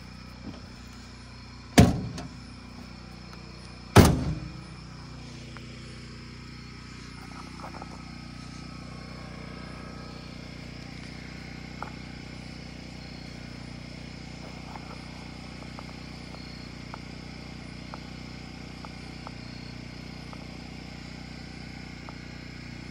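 Portable generator running steadily. Two heavy thuds about two seconds apart cut in near the start, and a few faint ticks come later.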